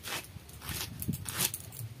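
Knife chopping a pile of freshly cut bottle gourd leaves against a woven mat. Three crisp cutting strokes, about two-thirds of a second apart, with lighter cuts between them.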